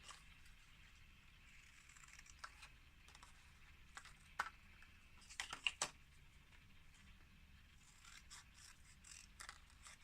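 Near silence with faint scrapes and clicks of paper and photos being handled, and a few sharper clicks around the middle, such as scissors closing.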